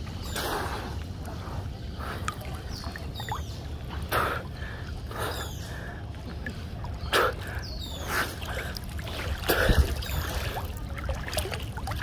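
Water splashing and sloshing close to the microphone as people swim through a channel. The splashes come at irregular strokes, the strongest around four, seven and ten seconds in, over a steady low rumble.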